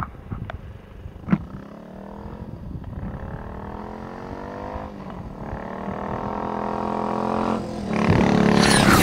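1957 Triumph Tiger Cub T20C's 200 cc single-cylinder four-stroke engine approaching under acceleration, its pitch rising through the gears with two brief dips at the shifts, getting steadily louder and loudest as it passes close by, the pitch falling as it goes past. A sharp click sounds about a second in.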